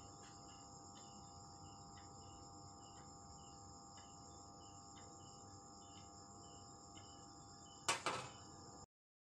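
Faint taps of a metal fork pricking the bases of unbaked tart pastry shells, against a steady background of insect chirping at about two chirps a second. A louder clatter comes about eight seconds in, and then the sound cuts off.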